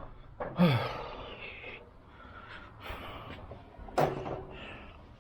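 Kitchen handling noises: a couple of sharp knocks or clatters, one about half a second in and another about four seconds in, with fainter rustling and shuffling between.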